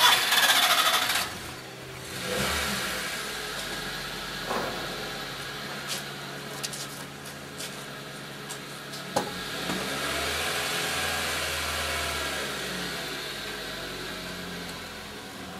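Car engine idling with a steady low hum and a few faint knocks. A loud burst of noise fills the first second.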